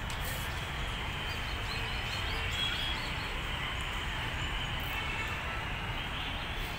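Steady rushing outdoor noise with a low rumble, unchanging in level, and a few faint high chirps around the middle.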